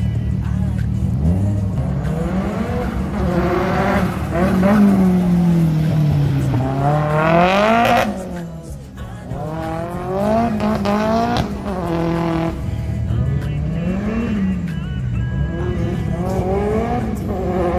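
Drift car engines revved hard and let off over and over, the pitch rising and falling every two or three seconds, with tyres squealing as the cars slide around the course. The sound drops away briefly just past the middle, then the revving picks up again.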